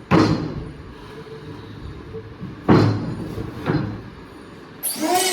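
Three heavy knocks, about a second or more apart, like wooden panels being set down or struck. Near the end a wavering voice-like sound starts.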